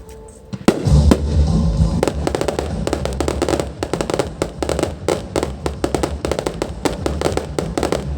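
Fireworks going off: a single sharp bang under a second in, then a rapid run of cracks and pops, several a second, over a steady low rumble.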